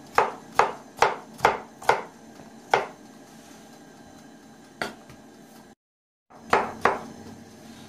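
Kitchen knife dicing potato on a plastic cutting board: a quick run of sharp chopping knocks, about two a second, for the first three seconds, then three more spaced-out strikes. The sound drops out completely for about half a second near the six-second mark.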